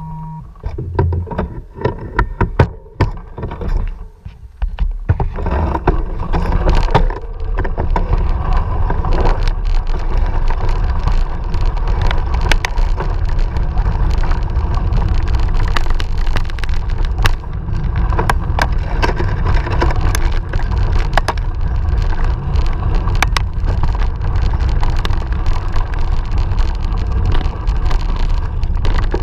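Mountain bike riding over gravel and dirt: tyres crunching and the bike rattling and clicking, with a steady loud rumble of wind and road noise on the microphone once it picks up speed about five seconds in.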